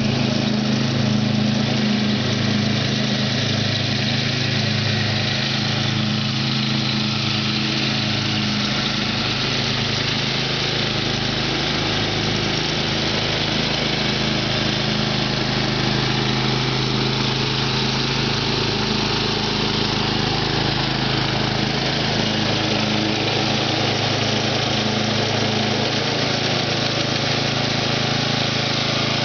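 Simplicity riding lawn tractor's engine running at a steady speed as the tractor is driven across the lawn.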